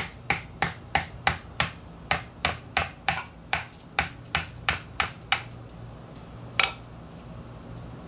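Hammer striking the handle of a screwdriver to drive its tip through a coconut shell, punching a hole to drain the coconut water. Quick, regular strikes, about three a second, stop after some five seconds; after a pause comes one last strike.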